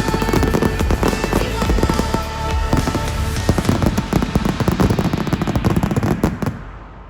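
Fireworks display: dense, rapid bangs and crackling over music. Both cut off suddenly about six and a half seconds in.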